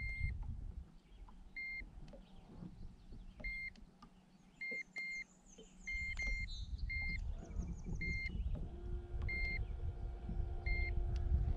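Handheld digital fish scale beeping at each button press: about a dozen short, high-pitched beeps at irregular spacing as the bass's weight reading is taken and locked. A low rumble runs underneath, and a steady low hum comes in about two-thirds of the way through.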